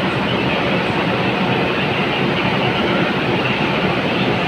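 Indian Railways express train rolling past on the rails, its tail-end luggage and brake van drawing away: a steady, even noise of wheels on track with no distinct clickety-clack rhythm.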